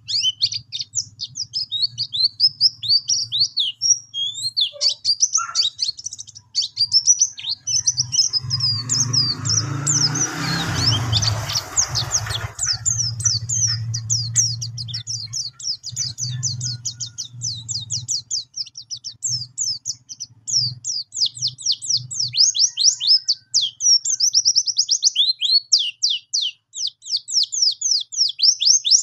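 Caged white-eye (pleci) singing a fast, nearly unbroken rolling song ('ngerol') of high chirps and trills. A low background rumble runs underneath, swells around ten seconds in and dies away a little after twenty seconds.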